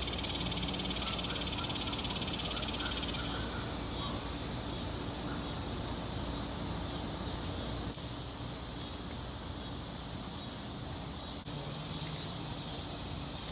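Insects chirping steadily in a fast, even trill over a low steady hum, with a faint click about eight seconds in.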